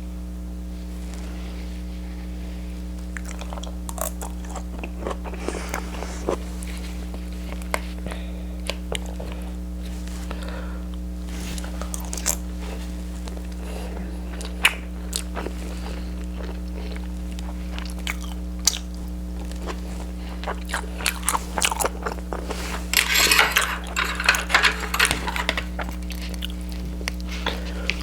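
A person eating close to the microphone: chewing with scattered crunches and clicks, and a denser spell of loud crunching near the end. A steady low electrical hum runs underneath.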